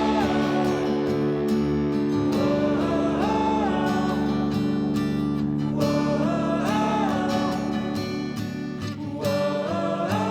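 Music with guitar: steady held low notes under a melody that rises and falls in short repeated phrases every few seconds.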